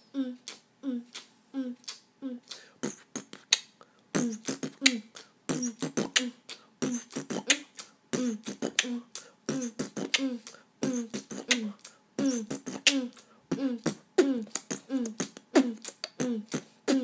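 Cockatiel beatboxing: a steady rhythm of short, low, falling "boom" notes about twice a second, with sharp clicks between them that get busier after about four seconds.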